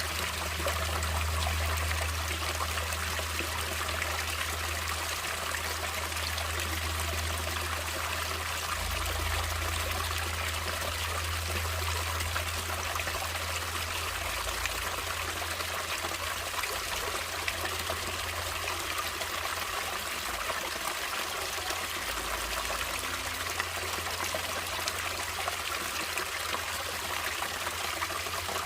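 Stream water running and trickling steadily over rocks, a continuous even rush.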